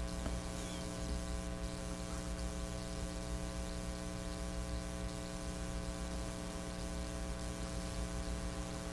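Steady electrical mains hum, a low buzz with many even overtones that holds unchanged throughout.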